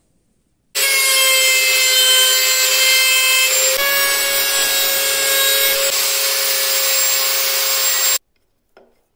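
Table-mounted router running at speed with a steady whine while a wooden strip is fed across its bit to cut grooves. It starts abruptly about a second in and cuts off abruptly shortly before the end.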